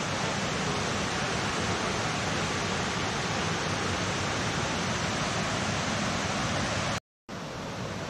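Steady rush of water cascading over the limestone tiers of Kuang Si Falls into the pools. The sound cuts out completely for a moment near the end.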